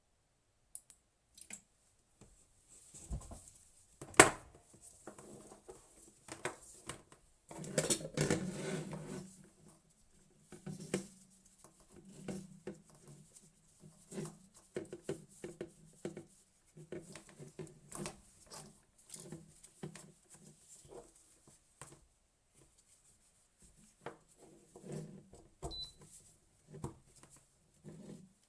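Irregular clicks, knocks and clatter of hard objects being handled, with one sharp knock about four seconds in.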